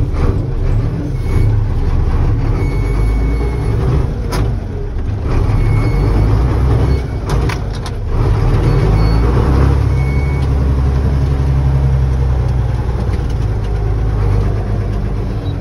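Old Ford ten-wheel truck's engine running, heard from inside the cab. The engine note dips and then picks up again about eight seconds in, with a couple of sharp clicks from the cab along the way.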